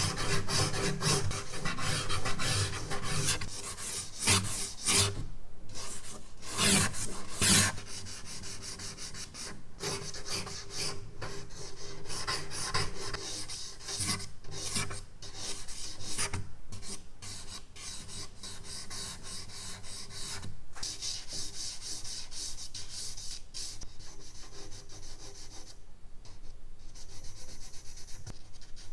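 Charcoal stick scratching and rubbing across drawing paper in quick, repeated strokes. The strokes are heavier and louder for the first several seconds, then lighter and softer.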